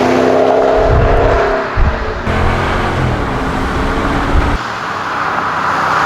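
Engine of a pickup truck running and revving loudly, its pitch rising and falling, with an abrupt change in the sound about two seconds in.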